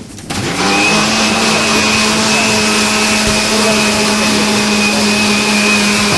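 Electric blender switched on, its motor spinning up within the first second and then running at a steady speed.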